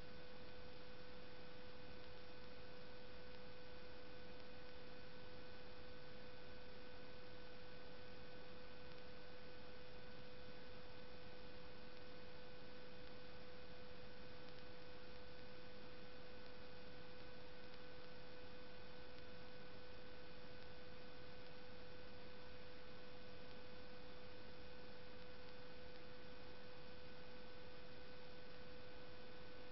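Steady electrical hum: a single mid-pitched tone with fainter higher overtones, over constant hiss.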